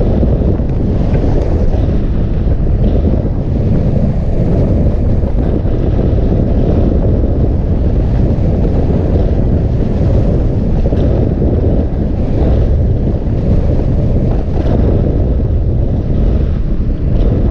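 Airflow rushing over a camera mounted on a hang glider's wing in flight: a loud, steady low rumble of wind on the microphone.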